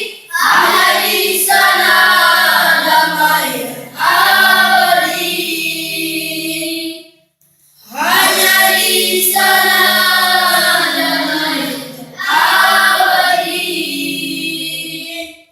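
A group of voices singing together in long held phrases, with a short break about seven seconds in.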